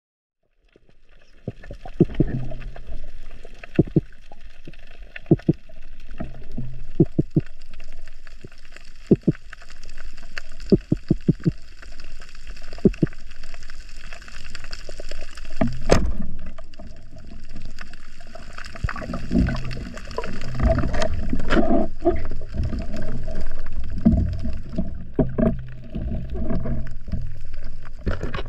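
Water gurgling and sloshing around the microphone, with scattered sharp clicks and knocks and a low steady hum underneath; the sound begins suddenly about half a second in.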